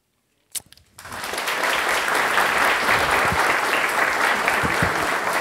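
Audience applauding. After a short silence there is one sharp click about half a second in, and within a second the clapping builds to steady applause.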